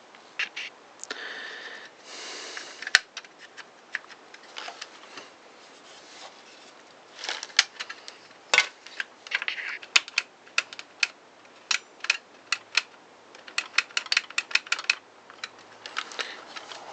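Clicks, taps and rustling of the saw's housing parts and wires being handled and fitted together during reassembly of a Makita 5621 circular saw, with one sharp knock about three seconds in and quick runs of clicks in the second half.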